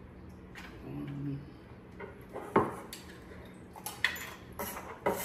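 Scattered light knocks and clinks as a kitchen knife scrapes minced onion off a wooden cutting board into a glass measuring cup, and the onion is tipped into a frying pan.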